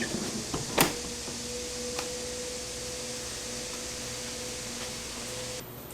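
A sharp click, then a steady mid-pitched machine hum that stops shortly before the end, with a fainter click partway through.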